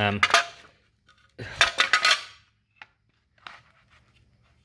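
Loose metal chainsaw parts clattering and clinking as they are handled and rummaged in a box: a burst of rattling about a second and a half in, then a few single clinks.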